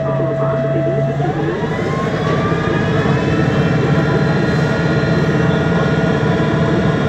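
MAN Lion's City G CNG articulated bus with its MAN E 2866 natural-gas engine running steadily, then speeding up about a second in: the engine and drivetrain tones rise in pitch together over a couple of seconds as the bus accelerates, then hold.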